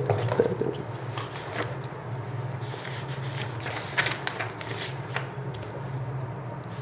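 Light scraping and rubbing handling sounds with a few faint ticks, over a steady low hum.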